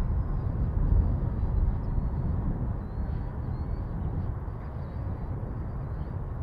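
Wind buffeting the microphone in an uneven low rumble, over a faint thin high whine from an RC jet's electric ducted fan in flight.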